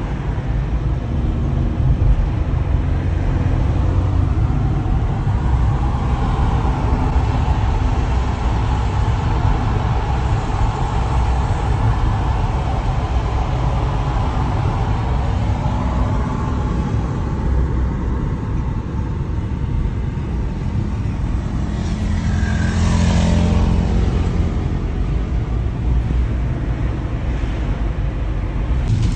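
Steady road and engine rumble inside the cabin of a small Volkswagen car while driving. About 22 seconds in, a louder swell with a falling pitch.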